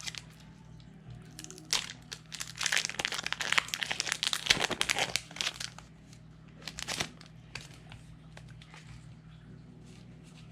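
Crinkling of a foil Pokémon booster pack wrapper as it is handled. The crinkles come thick from about two and a half to six seconds in, with a shorter burst about seven seconds in.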